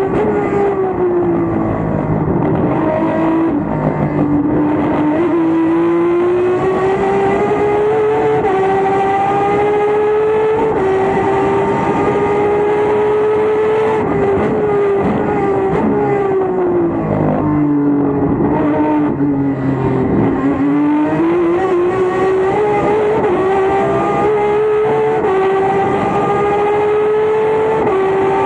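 Turismo Carretera Torino race car's straight-six engine running hard at high revs, heard from inside the cockpit. Its pitch sags briefly a few seconds in, and for a longer spell about two-thirds of the way through, then climbs back up.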